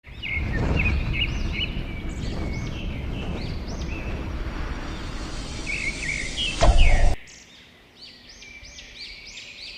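Many small cage birds chirping over and over in an aviary, short rising-and-falling chirps overlapping. A low rumble sits under them and stops abruptly about seven seconds in, with a single knock just before.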